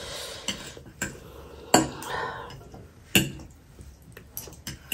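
Metal fork and chopsticks clinking against a plate while stirring and lifting sticky instant noodles in sauce: several sharp clinks, the loudest about two and three seconds in, with softer stirring noise between.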